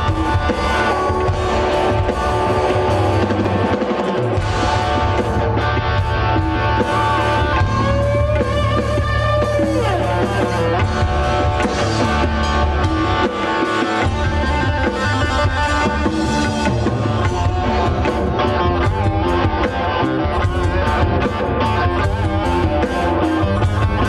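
Live fusion rock band playing on stage: guitars over a drum kit, loud and bass-heavy.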